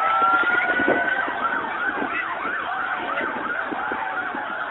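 Police siren winding up in a long rising wail over the first second, then switching to a fast yelp that rises and falls about three times a second.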